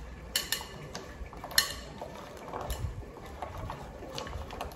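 Kitchen utensil scraping and tapping against a dish, with a few sharp clicks, the loudest about a second and a half in.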